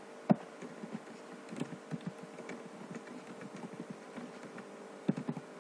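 Computer keyboard keys tapped in short irregular runs, with one sharper click just after the start.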